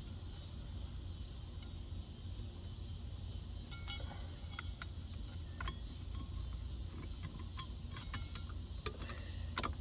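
Scattered light clicks and taps of small parts being handled at a car's steering column while the horn wire and column cover are fitted. They start about four seconds in, and the sharpest comes near the end. A steady high-pitched tone and a low hum run underneath.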